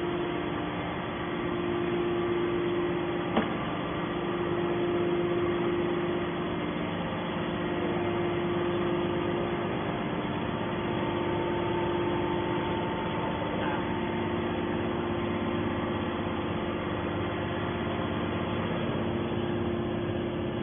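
A machine running with a steady hum and a held low tone, and a single sharp click about three seconds in.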